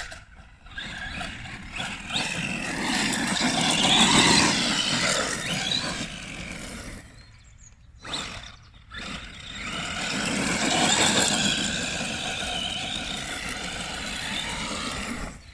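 Electric RC car's brushless motor whining with tyre noise as it accelerates and runs past, the pitch rising and falling. It swells twice, with a short lull about seven seconds in.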